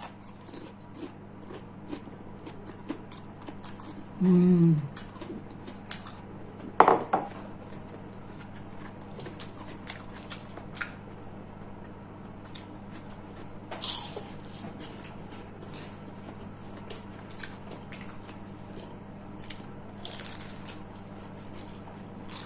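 Eating at a table: cutlery clicking and scraping against plates in scattered light clicks, with a short hummed voice sound about four seconds in. A steady low hum runs underneath.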